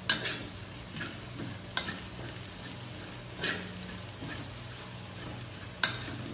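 Blended garlic and red chili sizzling in hot oil in a wok as a spatula stirs it, with a sharp scrape of the spatula across the pan about every two seconds. The paste is being fried until fragrant.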